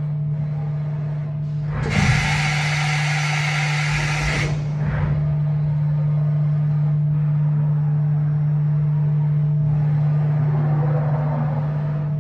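Mori Seiki NH 4000 DCG horizontal machining centre running with a steady low hum. About two seconds in, a loud hiss comes in for about two and a half seconds, then stops.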